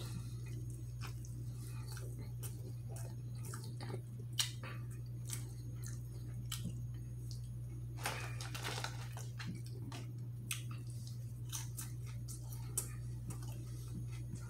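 Close-up chewing and wet mouth clicks of a man eating an Italian beef sandwich, with a longer rustle about eight seconds in, over a steady low hum.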